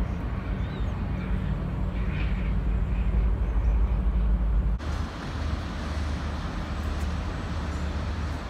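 Tugboat and container ship diesel engines rumbling low and steadily. About five seconds in the sound cuts abruptly to a steadier engine hum with more hiss from the water wash.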